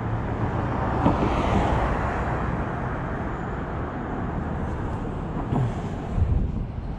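Street traffic: car engines and tyre noise, with the sound of a passing car swelling and fading about a second or two in. A few short knocks stand out, one about a second in and two more near the end.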